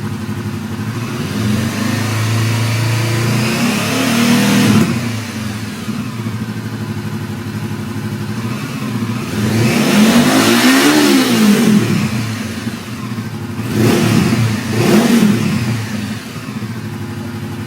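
Honda CB500X's parallel-twin engine idling and being revved from standstill: a rev that climbs and drops back a few seconds in, a longer rev rising and falling about halfway through, then two quick throttle blips before it settles back to a steady idle.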